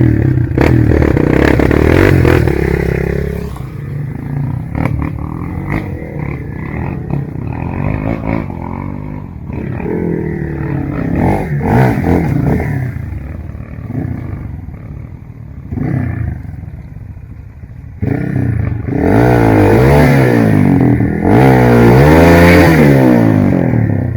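Off-road trail motorcycle engine revving in repeated bursts, its pitch climbing and dropping. It is loud at first, eases into quieter short revs through the middle, and revs hard again from about 19 seconds in.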